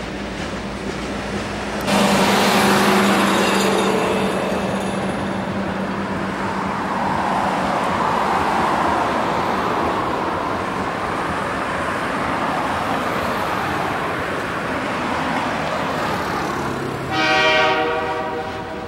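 Canadian Pacific freight train rolling past, its cars and wheels running steadily on the rails, with a car going by on the road midway. Near the end a diesel locomotive horn sounds one short blast.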